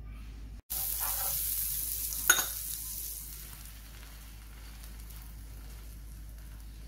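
Melted butter sizzling in a hot pan under a bread sandwich that is being pressed down. The sizzle starts suddenly just under a second in, is loudest for the next two seconds, then settles to a quieter steady sizzle; a single sharp click comes a little after two seconds in.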